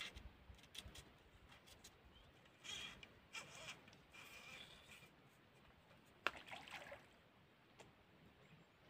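Near silence of quiet outdoor surroundings, with a few faint brief sounds and one sharp click about six seconds in.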